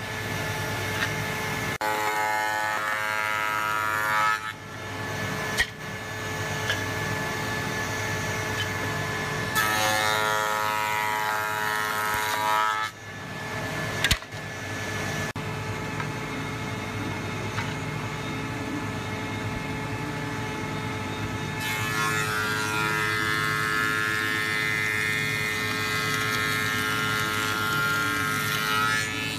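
Woodworking shaper running steadily with a spinning cutter, whining as wooden strips are pushed past it in two passes of a few seconds each. A sharp knock comes about 14 seconds in, and from about two-thirds of the way through a fuller, louder machine noise takes over.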